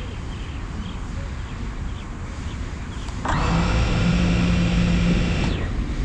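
FPV drone's electric motors spinning at idle on the ground: a steady whine of several pitches that starts abruptly about three seconds in and cuts off about two seconds later, over a steady background hiss.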